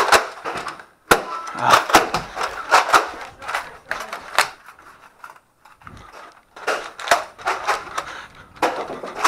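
Sharp clacks and snaps of Nerf foam-dart blasters firing and darts hitting hard surfaces, in quick irregular clusters, with a lull of about a second and a half just past the middle.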